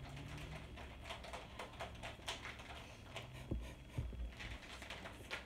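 Scattered light clicks and taps from makeup and a makeup brush being handled, with two soft thumps about three and a half and four seconds in.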